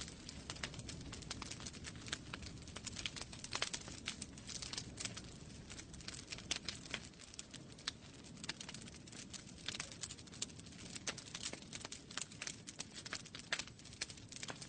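Wood fire burning in a fireplace: irregular sharp crackles and pops over a soft low rumble of flames.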